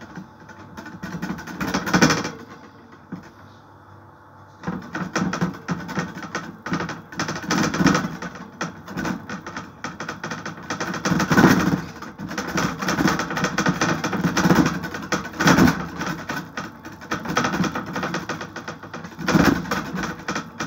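Fingertips pressing and dimpling flatbread dough on a metal baking tray: rapid, irregular soft tapping and patting, with louder bursts every few seconds.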